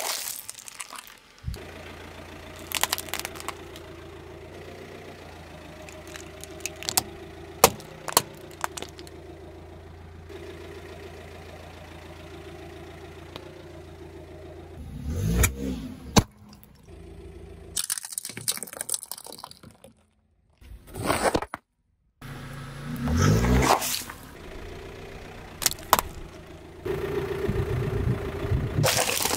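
A car engine idling close by while a tyre slowly rolls over and crushes small objects, with sharp cracks, crackles and scrapes scattered through, loud crunching bursts about halfway and again a few seconds later, and a brief drop to near silence between them.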